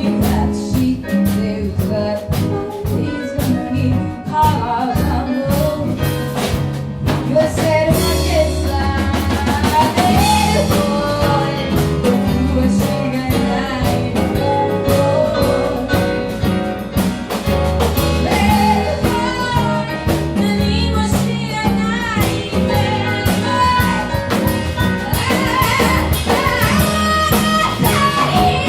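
Music with a drum kit, a bass line moving in held steps and a wavering lead melody.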